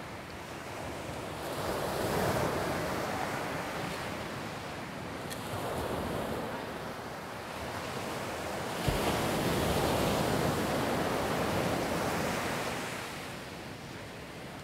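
Small surf breaking and washing up a sandy beach, swelling and fading every few seconds, with some wind on the microphone. A brief low thump about nine seconds in.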